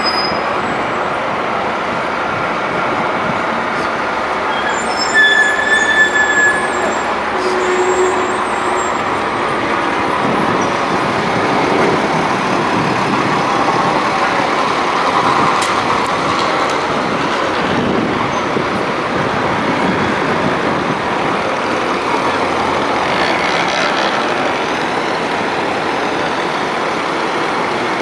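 Steady city traffic noise, with motor vehicles running past and a few short high squeals about five to eight seconds in.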